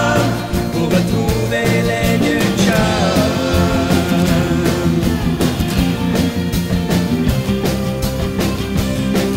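Rock band playing an instrumental passage on electric guitar, electric bass and drum kit.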